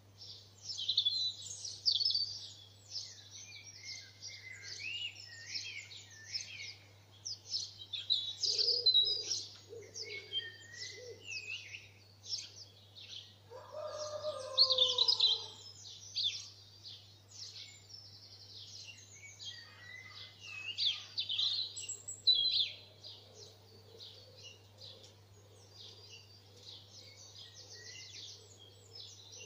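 Dawn chorus: several garden songbirds singing and calling at once, a dense overlap of high chirps, trills and song phrases. A lower-pitched call falls in pitch about fourteen seconds in.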